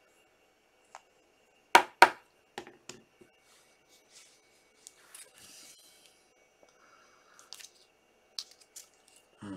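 Hands handling a plastic card toploader and a marker on a table: two sharp plastic clicks just under two seconds in, the loudest sounds, then scattered lighter taps and clicks with a soft rustle.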